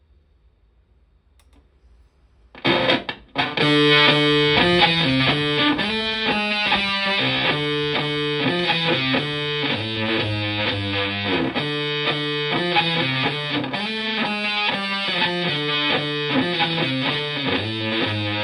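Stratocaster electric guitar through a germanium Fuzzrite-style fuzz pedal and a Fender Twin Reverb-style amp, playing a fuzzy distorted riff. It comes in about two and a half seconds in, breaks off for a moment, then plays on steadily.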